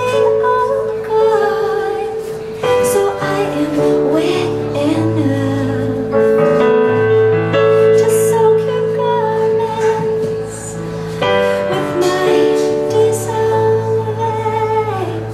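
A woman singing live into a microphone, her voice gliding and bending in pitch over held low accompaniment notes.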